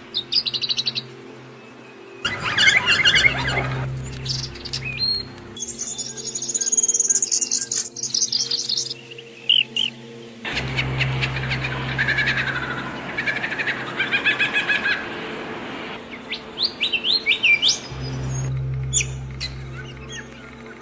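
Songbirds chirping and singing: fast repeated trills and short rising whistles from several birds, in stretches that change abruptly every few seconds, over a faint steady low hum.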